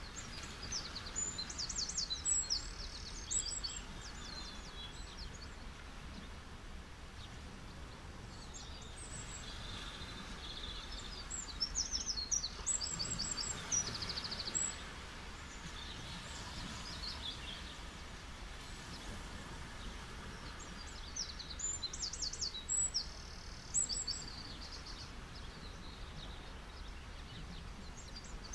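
Birds chirping in quick, high-pitched trills in three spells: about a second in, again from around nine to fifteen seconds, and around twenty-one to twenty-four seconds. Under them runs a steady low background rush.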